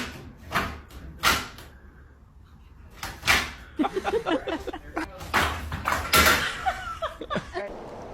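A series of sharp knocks and bangs, with short wavering vocal calls between them in the second half.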